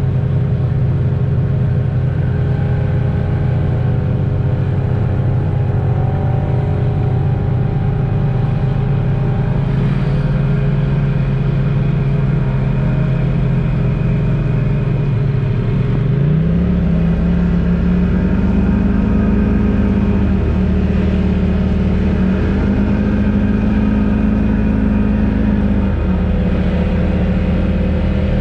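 Polaris General XP4 UTV's twin-cylinder engine running steadily under way, its pitch stepping up about halfway through as the revs rise, then holding at the higher pitch with a couple of brief dips.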